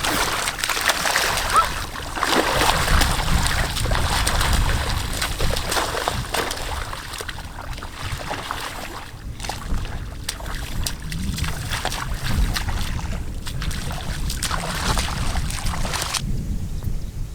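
Water splashing and sloshing, with many short splashes over a low rumble.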